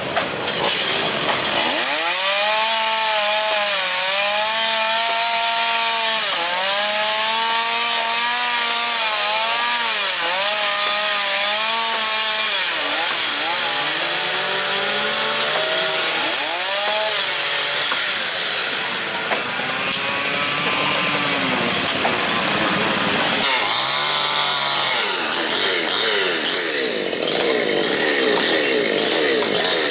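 Chainsaw running and cutting wood, its engine pitch rising and dipping over and over as it is revved and loaded, likely cutting up a fallen tree. The pitch pattern starts about two seconds in and gives way to a rougher, noisier stretch near the end.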